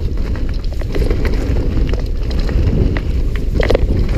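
Wind rushing over the camera microphone as a Jamis Defcon full-suspension mountain bike rolls down a dirt trail, with scattered clicks and rattles from the tyres and bike and one louder knock near the end.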